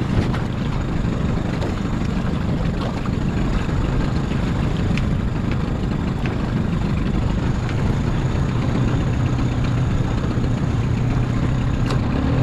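Small boat's outboard motor idling steadily, a low even hum.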